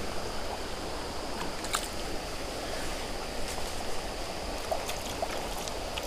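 Creek water running over rocks in a steady rush, with a few faint scattered clicks.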